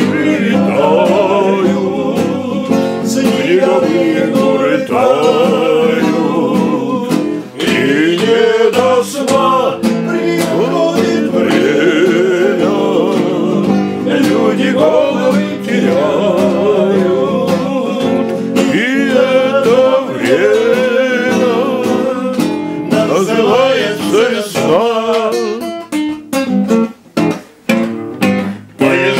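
A man singing to acoustic guitar accompaniment. Near the end the guitar plays a run of sharp strummed chords with short breaks between them.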